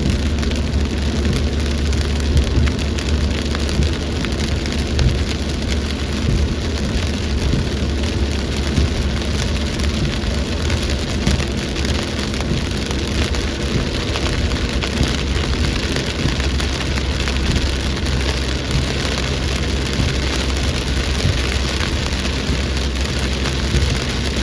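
Heavy rain in a storm: a steady, loud downpour of dense pattering drops over a deep low rumble.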